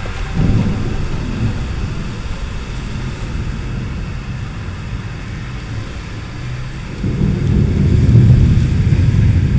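A deep low rumble over a faint steady hiss. It swells up about seven seconds in and is loudest near the end.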